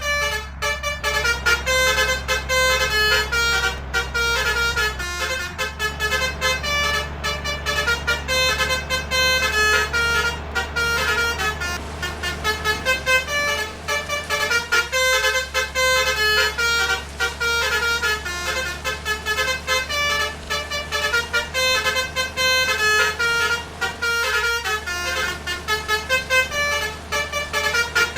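Basuri multi-tone air horns (telolet horns) playing a quick melody of stepping notes, over a steady low hum.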